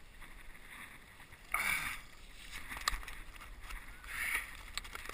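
Water splashing and dripping as a landing net holding a halibut is lifted out of the water onto a kayak, in two short bursts, with a couple of sharp knocks.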